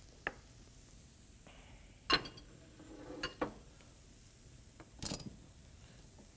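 Light metallic clinks and knocks of kitchen utensils being handled, metal tongs among them: a handful of separate sharp clicks, some with a short ring.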